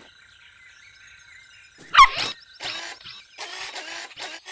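Cartoon puppy giving one yappy bark of sliding pitch about two seconds in, followed by a few short puffs, over faint jungle ambience with small bird chirps.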